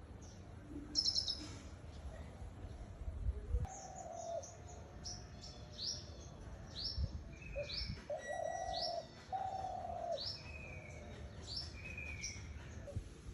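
Birds chirping in a morning chorus: a run of short, high, falling chirps repeated about every half second from a few seconds in. Lower, drawn-out calls come in between them, with a faint low rumble underneath.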